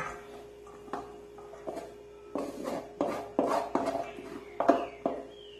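Cooked rice being scraped out of a large metal pot into a smaller metal saucepan with a wooden spoon: irregular knocks and scrapes of spoon against metal and pan rim against pan, busiest in the second half. A faint steady hum runs underneath.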